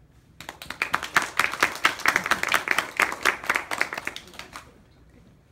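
Applause from a small audience, with loud, distinct claps close by. It starts about half a second in and dies away after about four seconds.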